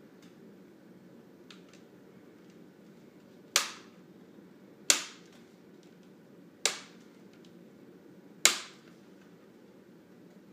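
Plastic screen bezel clips on a Samsung NP550P5C laptop snapping loose as the bezel is pried off: four sharp snaps, one to two seconds apart, with a few faint clicks before them.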